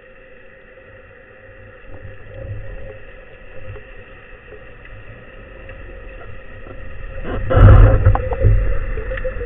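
Underwater recording: low rumbling water noise with a faint steady hum, swelling to a loud rush of noise about seven and a half seconds in that settles again within about a second.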